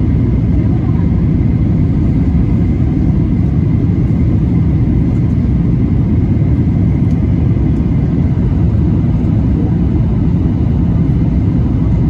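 Steady low rumble of a jet airliner cabin in flight: engine and airflow noise heard through the fuselage, with a faint steady high tone above it.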